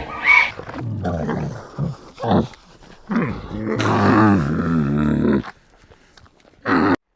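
Farm animal calling: a few short low calls, then a longer call with a wavering pitch, which stops about two seconds before the end.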